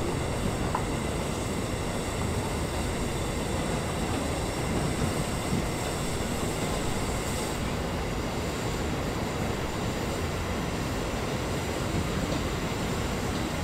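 Steady hiss of steam escaping from beneath a 1929 Sentinel steam waggon, running on without a break.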